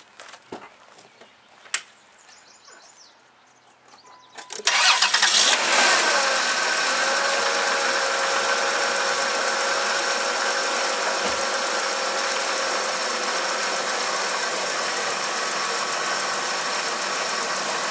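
A few faint clicks, then about four and a half seconds in the 1997 Dodge Grand Caravan's 3.8-litre V6 cranks, catches almost at once and settles into a steady idle.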